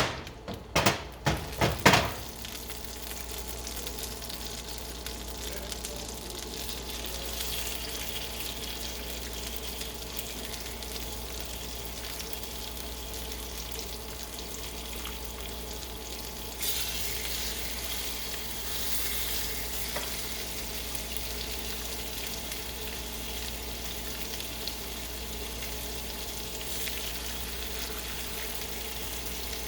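Salmon fillets sizzling as they fry in butter in a hot pan. A few sharp knocks come in the first two seconds, and the sizzle gets louder a little past halfway.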